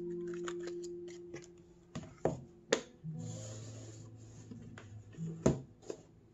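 Hands handling a cardboard earphone box and its contents: paper rustling and the insert tray sliding, with several sharp knocks of cardboard against the tabletop, the loudest about five and a half seconds in. Soft background music with held notes runs underneath.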